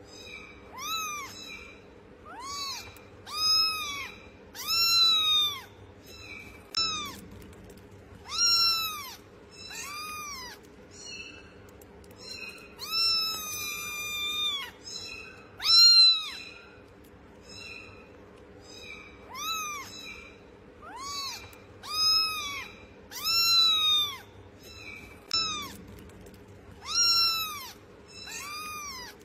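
Young kitten mewing over and over: more than a dozen thin, high calls, each rising then falling in pitch, with one longer drawn-out mew about thirteen seconds in.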